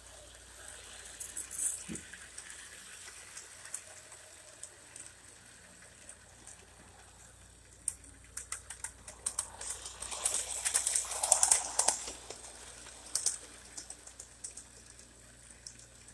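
O-gauge model train running on 027 tubular track, its wheels clicking and rattling over the rail joints in an irregular patter. The clatter is busiest about ten to twelve seconds in.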